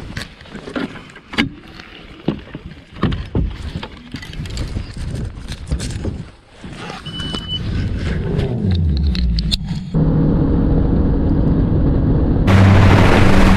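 Clunks and knocks of gear being handled on a bass boat deck, including the bow trolling motor, then a short beep about seven seconds in. A boat's outboard motor then comes in, rising in pitch and settling into a steady run, and near the end wind noise on the microphone jumps up as the boat speeds away.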